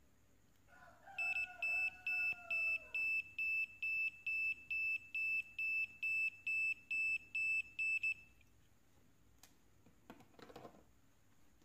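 Small piezo buzzer on a homemade NE555/4017 IC tester board beeping repeatedly, about two short high beeps a second, some fifteen in all, stopping about eight seconds in. The NE555 astable circuit drives the buzzer, and the beeping is the sign that the NE555 under test is working.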